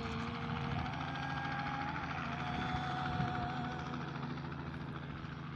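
A woman's singing voice holding one long note of a hymn, over a steady low mechanical hum.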